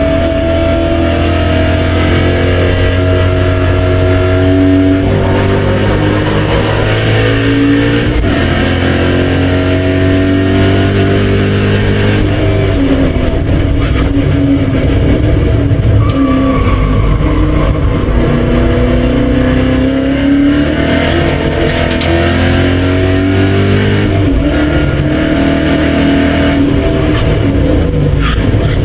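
BMW M5 E39's 4.9-litre V8 driven hard, the engine note climbing with the revs and dropping back at gear changes and lifts, several times over.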